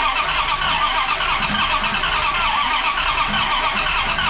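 Starter cranking a 5.9 Magnum V8 steadily without it catching. The engine won't fire because the distributor is in 180 degrees out.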